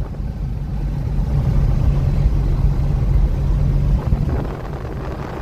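Piper light aircraft's piston engine running steadily, easing off and getting quieter about four seconds in.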